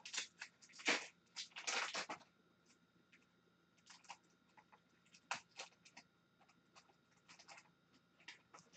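Upper Deck Tim Hortons hockey card pack wrapper crinkling and tearing open, with dense rustling bursts in the first two seconds. Lighter crackles and clicks follow as the cards are pulled out and fanned.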